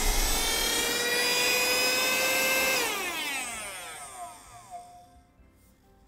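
ONPRO UV-V1 handheld vacuum cleaner's motor running with a steady high whine, then switched off about three seconds in, the whine falling in pitch and fading as the motor spins down.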